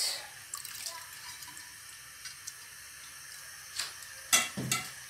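Liquid stock sloshing in a steel pot as a hand presses freshly added rice down into it, with a few short splashes and knocks about four seconds in.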